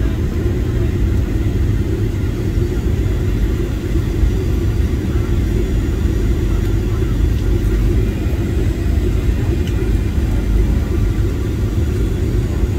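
Airliner cabin noise during the descent to land: a steady low rumble of engines and airflow heard from a window seat.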